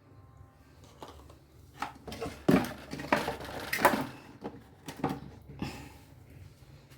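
Kitchen utensils and containers clinking and knocking, about seven sharp knocks spread over a few seconds.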